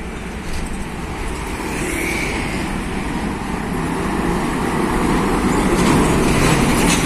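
Diesel engine of a cab-over tractor unit hauling a shipping container trailer, passing close by: engine and tyre noise build steadily and peak near the end. A motorcycle goes by first.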